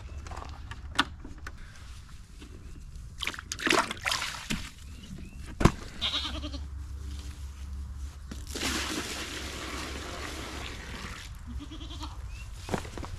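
Goats bleating a couple of times, among sharp knocks and a few seconds of rushing noise around the middle.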